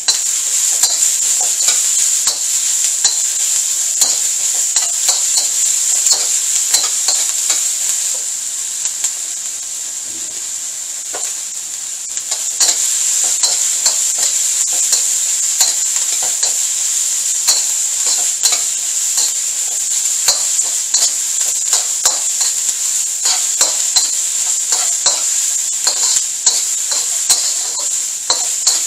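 Diced onion, garlic and bell peppers sizzling in hot oil in a black steel wok, with a metal spatula scraping and knocking against the pan again and again as they are stir-fried. The stirring eases for a few seconds about a third of the way in.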